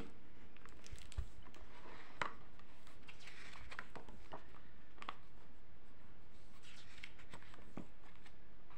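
Hands handling a hardback picture book, turning and smoothing its pages: scattered soft paper rustles with a few light taps and clicks.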